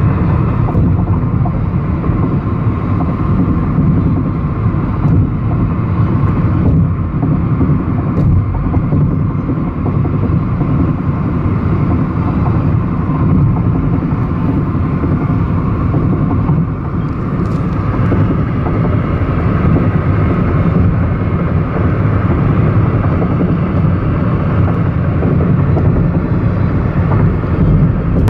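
Steady road noise inside a car driving at highway speed: tyres and engine running with an even drone.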